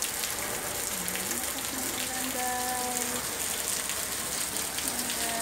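Heavy rain falling steadily, a constant hiss with water running and gushing on the wet pavement.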